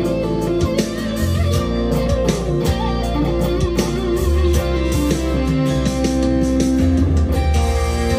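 Monoprice Indio Cali Classic Strat-copy electric guitar played through an amplifier: picked single-note lead lines with held, sustaining notes.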